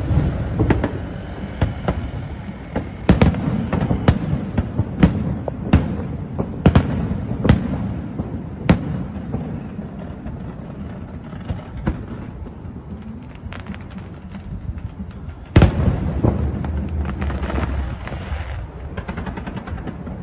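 Fireworks bursting: a run of sharp bangs about a second apart, then a stretch of lighter crackling, and a loud bang near the end followed by dense crackling.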